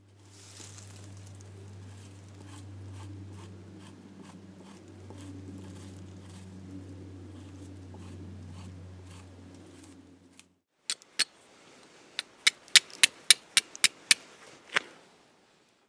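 Flint and steel: a steel striker scraped hard against a flint, about ten sharp strikes in quick succession starting about eleven seconds in. Before that there is a steady low hum with faint regular ticks.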